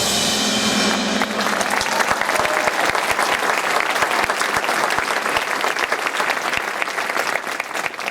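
A marching band's final held chord dies away about a second in, and a large crowd takes over applauding.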